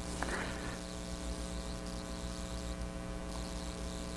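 Steady electrical mains hum with several fixed tones, in the recording's background. A faint brief rustle sounds about three seconds in.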